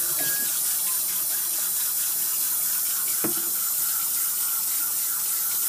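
Kitchen faucet running steadily into a stainless steel sink, water splashing by the drain, with one small knock about three seconds in.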